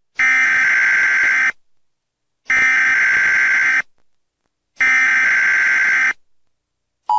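Emergency Alert System SAME header: three identical bursts of screeching digital data tones, each about a second and a half long, with a second of silence between them. Right at the end the steady two-tone EAS attention signal begins.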